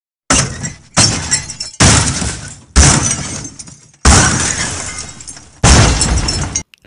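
Intro logo sound effects: six sudden crashing, shattering hits, each fading out over half a second to a second, the last one cut off abruptly near the end.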